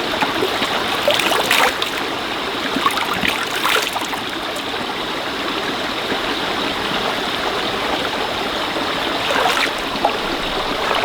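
A stream running over rocks, a steady rush of water with brief louder splashes and gurgles now and then.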